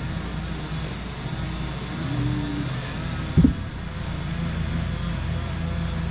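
Kandi Cowboy / Innovator dump bed actuator's electric motor running on the bench with a steady low hum, super quiet after its rebuild with new bearings. A single short knock comes about three and a half seconds in.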